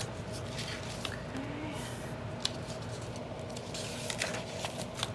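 Paper rustling and crackling as the pages of an old book are handled and pulled apart, with scattered light clicks and ticks.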